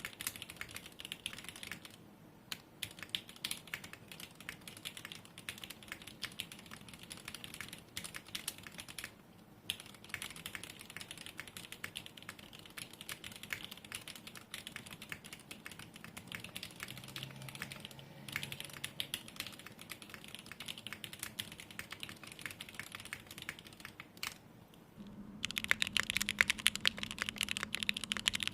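Typing on a Day Off 60 mechanical keyboard with lubed Gateron X r1 linear switches in an aluminium plate and GMK keycaps: a continuous patter of key clacks with a few brief pauses. About 25 seconds in it becomes louder and faster.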